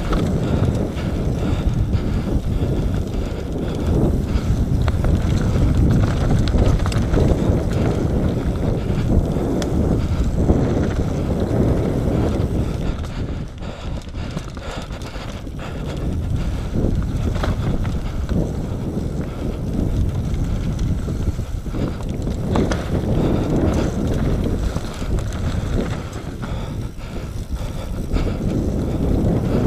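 Nukeproof Mega 275 enduro mountain bike descending a dirt trail at speed: wind rushing over the camera microphone and tyres rolling over dirt and dry leaves, with frequent rattles and knocks from the bike. The noise eases for a few seconds about halfway through.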